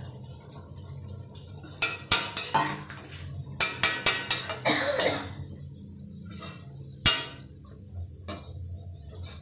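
A metal spatula scraping and clinking against a steel kadhai while stirring a wet curry: a quick string of clinks and scrapes for about three seconds, then a single louder knock about seven seconds in.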